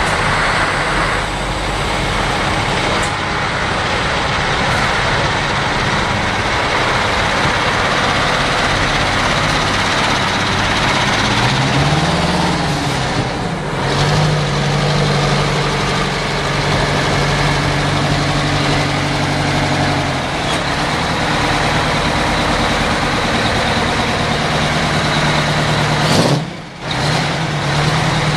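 Detroit Diesel-powered trucks running as they pull away, loud and continuous. About twelve seconds in, one engine note climbs and then holds a steady drone.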